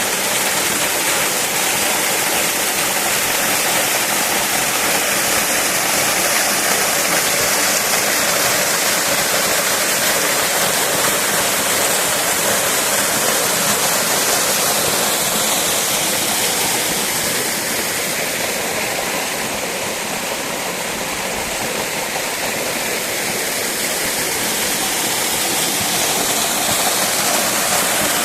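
A tall tiered waterfall crashing down onto rock, a steady, loud rush of water that dips a little about two-thirds of the way through.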